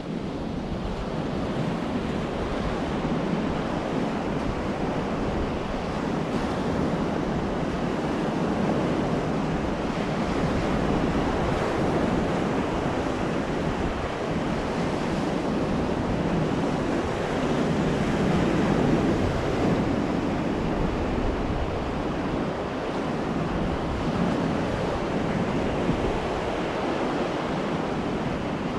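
Sea surf on a sandy beach: waves breaking and washing up the shore in a steady rush that swells a little now and then.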